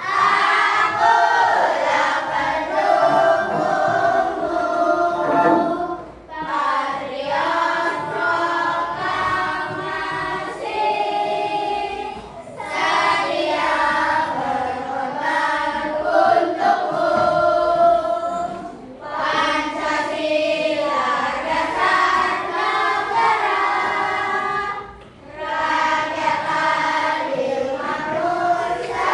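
A group of children singing a song together, in phrases of about six seconds with short breaks between them.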